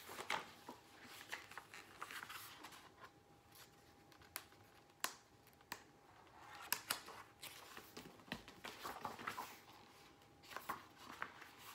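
Pages of a picture book being handled and turned: soft paper rustles and a scattering of short, sharp clicks and taps.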